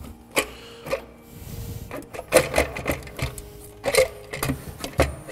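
Ratchet with a 10 mm socket and extension clicking in short runs as valve cover bolts are worked loose, with irregular metal clicks and knocks.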